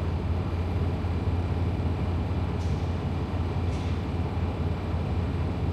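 Semi truck's diesel engine idling steadily, a low even rumble heard from inside the cab, with two faint brief hisses partway through.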